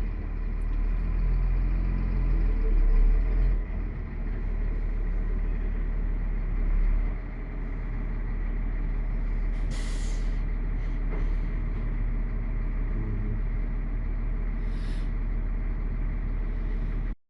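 Steady low rumble of a running vehicle engine, with two brief hisses about ten and fifteen seconds in. The sound cuts off suddenly at the end.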